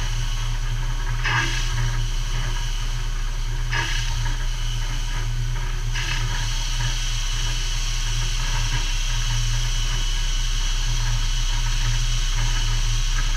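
Spindle of an Okuma GENOS M560V vertical machining center running at speed: a steady hum with a hiss above it, and three brief higher-pitched surges in the first six seconds.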